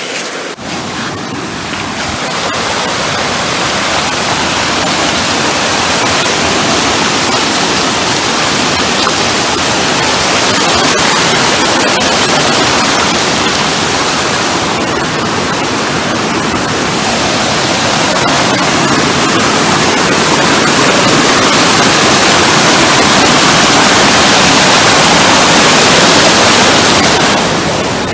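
A river running as flowing mud water after a tropical storm, rushing loudly and steadily around someone wading across it. It grows louder in the second half and falls away near the end.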